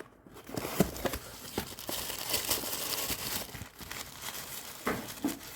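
Packaging being crinkled and handled as a box is opened, with crackling and a few small clicks and taps. It starts about half a second in.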